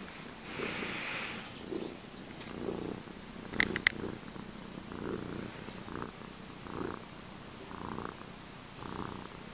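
A domestic cat purring softly and steadily, the purr swelling and fading about every three-quarters of a second with her breathing. A brief high chirp cuts in about three and a half seconds in.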